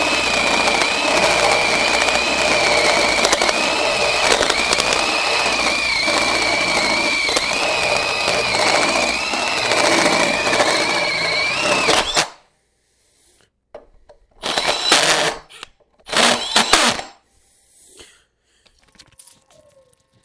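A 2-1/4 inch one-piece carbide hole saw in a 12-volt cordless hand drill running at high speed, cutting through the last uncut part of a quarter-inch steel plate, with a high whine that wavers slightly in pitch. The drill stops abruptly about twelve seconds in, and two short loud noises follow a couple of seconds apart.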